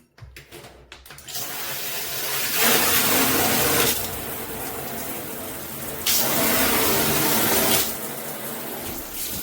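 Handheld shower head spraying water in a steady rushing hiss that starts about a second in. It gets louder twice for about a second and a half each time.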